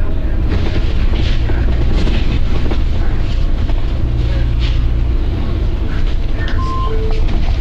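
Volvo B9TL double-decker bus running with a steady low engine rumble, heard from on board, with a few short hisses of air from the bus's air system.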